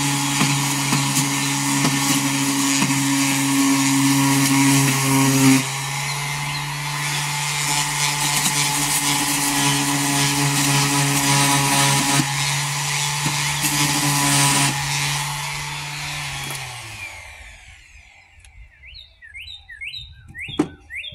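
Bauer random orbital sander running steadily against the wooden lid of a crate, then switched off about three-quarters of the way through, its pitch falling as it winds down. Near the end come a few short high chirps and a sharp knock.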